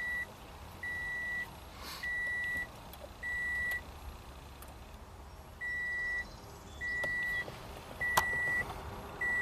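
Toyota Camry Hybrid's dashboard warning chime beeping in an even high-pitched pattern, about one beep a second, with a short pause about four seconds in: the door-ajar warning. A sharp click comes about eight seconds in.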